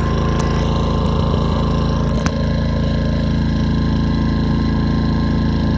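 Westinghouse iGen 2500 inverter generator's small four-stroke engine running steadily at close range, with a short knock about two seconds in.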